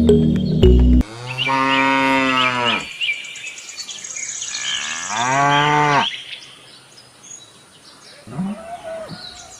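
Cattle mooing: two long moos, then a shorter call near the end, with faint bird chirps behind. Background music cuts off about a second in.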